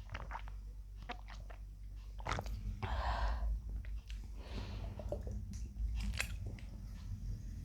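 A woman gulping Pepsi from a bottle close to the microphone: a run of short wet clicks from the mouth and throat as she swallows. There are two breathy rushes of air, one about three seconds in and another a second and a half later.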